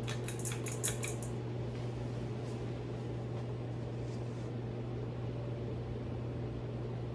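SMC DC42 42-inch flush-mount ceiling fan running at medium speed: a steady low motor hum under an even airy rush. A quick run of light clicks in the first second or so.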